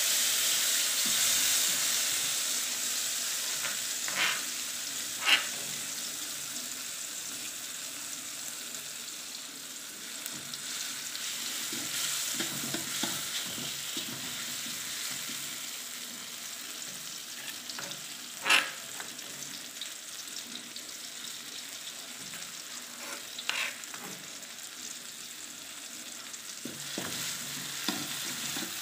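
Ground spice paste of shallots, garlic, ginger and chilli sizzling in hot oil in an aluminium wok as it is stirred with a metal ladle. The sizzle is loudest at first and slowly dies down, with a few sharp clinks of the ladle against the wok.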